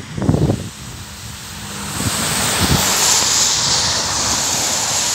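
Box truck driving past over a wet road: the hiss of tyres on the wet surface rises about two seconds in and holds. Wind buffets the microphone in the first second.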